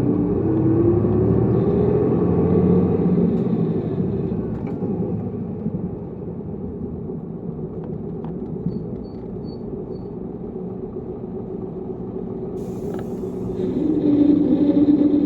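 Tokyu city bus running, heard on board: the engine note rises as it pulls away, then drops to a quieter run. Four short high beeps sound about halfway through, then comes a brief hiss of air, and the engine rises again near the end.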